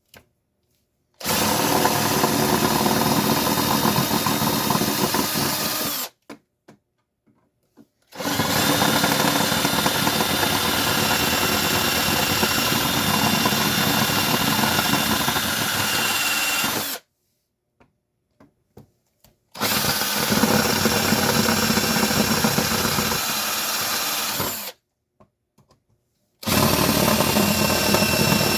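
Electric drill drilling out the rivets that hold a garage door opener's plastic top bracket. It runs in four long stretches of about five, nine, five and two-plus seconds, with brief stops between them.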